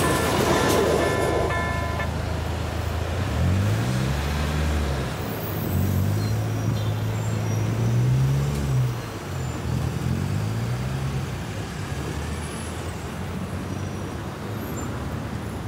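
The rumble of a passing train's wheels on the rails dies away about two seconds in. Road vehicles, a van and cars, then start off and drive across the level crossing, their engines revving up and changing pitch for several seconds before settling into steady traffic noise.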